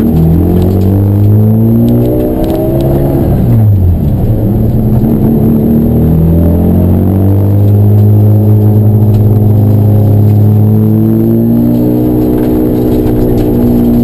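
Race car engine at high revs, its note dropping sharply near the start and again about four seconds in as it comes off the throttle, then climbing back up and holding a steady pitch.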